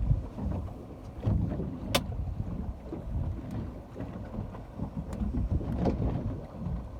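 Ocean surf washing on a beach, with wind buffeting the microphone in uneven low rumbles. A sharp click comes about two seconds in.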